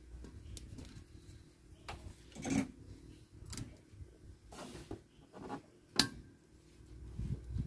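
Scattered light clicks and knocks from handling a CRT TV's neck board as it is pressed onto the picture tube's socket pins, the sharpest click about six seconds in.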